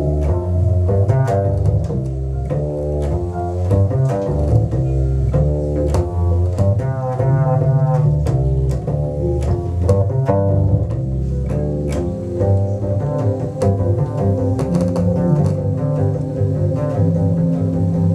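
Solo double bass improvising in a dense run of plucked notes with sharp attacks. A steady held tone sounds underneath.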